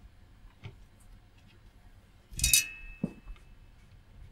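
Metal tweezers holding a small switch frame set down on the bench: one sharp metallic clink with a short ring about two and a half seconds in, then a lighter click, among faint handling ticks.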